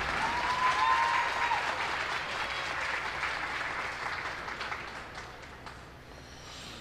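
Audience applauding in an ice rink arena, the clapping dying away about five seconds in.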